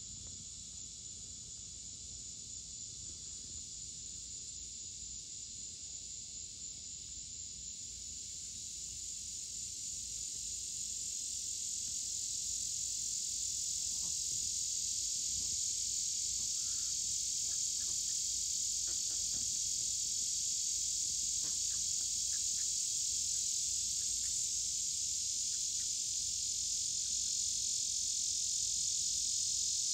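Chorus of crickets, a steady high-pitched trill that grows louder about a third of the way in and then holds steady.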